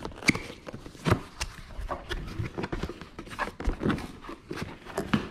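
A cardboard box being opened and its packaging handled: an irregular run of rustles, light knocks and clicks of paper, cardboard and foam, with the sharpest knocks about a quarter second and a second in.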